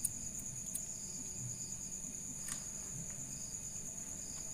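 Steady, high-pitched insect trill that pulses about twice a second, with a couple of faint clicks: one right at the start, one about two and a half seconds in.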